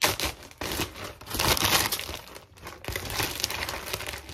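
Plastic Ziploc bag crinkling as it is handled and pulled open, a string of irregular rustles, loudest at the start and about a second and a half in.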